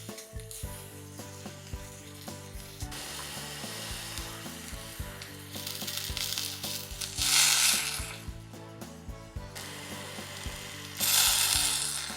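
Oil sizzling in a miniature frying pan, over background music. The hiss builds after a few seconds and swells loudly twice, for about a second each, around the middle and near the end.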